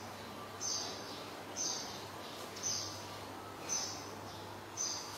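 A bird chirping: short, high-pitched chirps repeated about once a second, over a low steady hum.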